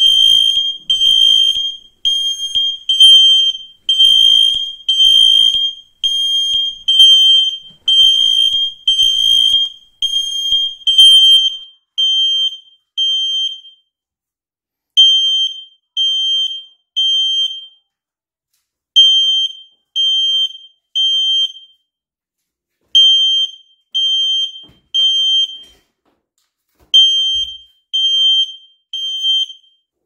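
Two interlinked X-Sense XS01-WR smoke alarms going off, triggered by smoke, with very loud, high-pitched beeps. For the first ten seconds or so the two units' beeps overlap out of step; then a single alarm keeps sounding in the standard three-beep evacuation pattern, three beeps then a pause, until it stops near the end.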